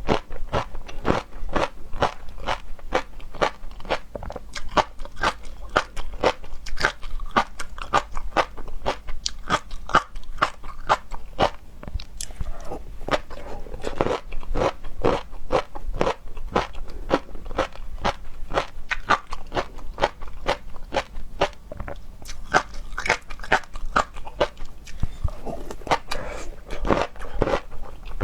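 Close-miked chewing and crunching of seafood, with a dense run of irregular crunches and wet clicks from the mouth.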